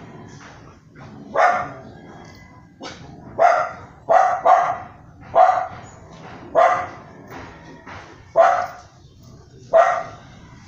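A dog barking repeatedly, about eight short barks at uneven intervals, with faint clicks and taps in between.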